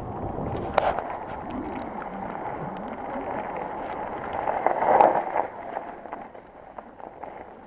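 Mountain bike rolling fast over a wet gravel trail: tyre noise on the gravel with rattling clicks from the bike and wind on the microphone, loudest about five seconds in, then easing off.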